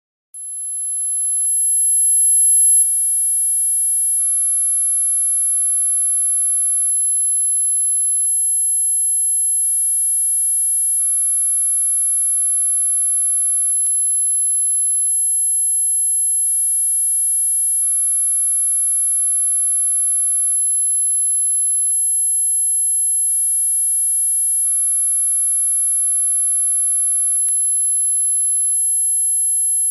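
Dog-whistle sound effect: one unbroken, very high-pitched steady tone. It swells in loudness over the first two or three seconds, then holds level without a break.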